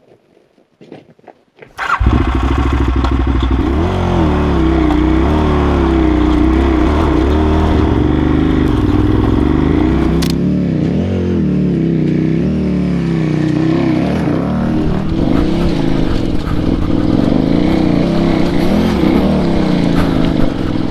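After a quiet first two seconds, a KTM adventure motorcycle's engine cuts in suddenly and runs loud to the end, its revs rising and falling unevenly as it climbs a rocky trail.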